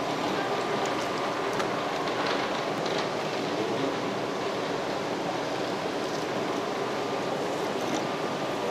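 Steady rushing background noise of a fish-market stall with a faint, steady high hum. A few faint ticks come in the first three seconds as a knife works along the side of a large red seabream.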